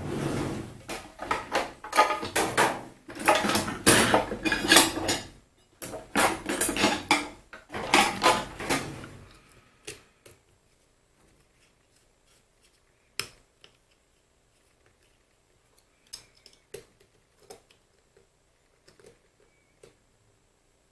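Small steel lathe parts clattering and clinking together as they are handled during reassembly of a mini lathe's topslide: a dense run of rapid rattling for about nine seconds, then only a few scattered light taps.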